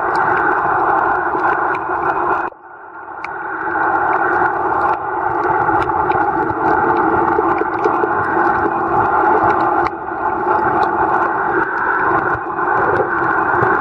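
Underwater camera audio while snorkeling: a steady muffled rushing of water against the camera housing, with scattered sharp clicks. About two and a half seconds in the rushing drops out suddenly and then builds back up.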